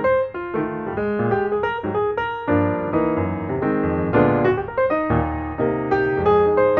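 Background piano music: a steady flow of notes, several sounding at once.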